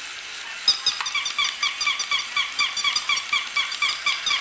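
Battery-operated plush toy puppy making electronic yapping: a rapid run of short, high-pitched yips, about six a second. It starts with a click a little under a second in.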